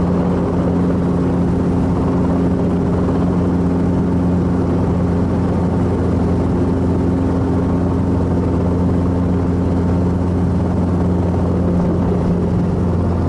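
Helicopter running with its main rotor turning, heard from inside the cabin: a steady engine and rotor drone.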